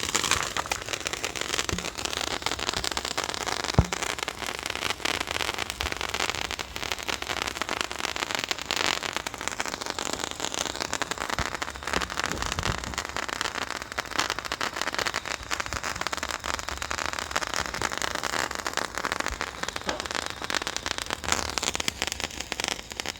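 Handheld toy firework burning: a steady, crackling hiss of spraying sparks that starts suddenly and cuts off after about twenty-three seconds, with one sharp pop about four seconds in.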